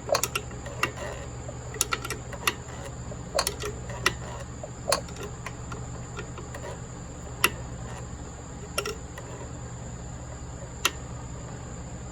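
Tools and small metal parts clicking and tapping irregularly as they are handled, over a steady low hum.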